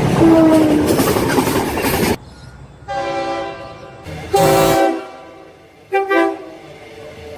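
Train horns sounding across several short clips. First a loud rush of a passing train with a horn note that drops in pitch about half a second in. After a break come a horn blast of about a second, a louder short blast a little past four seconds, and two quick toots near six seconds.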